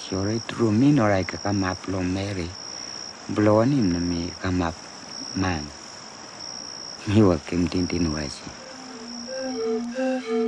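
A man speaking in the Sambia language over an insect trilling in half-second pulses about once a second. Near the end, bamboo flutes start playing short repeated notes.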